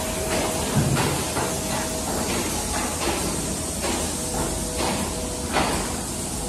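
Workshop background noise in a factory hall: a steady hiss with irregular knocks and taps every half second to a second, and a faint steady hum that comes and goes.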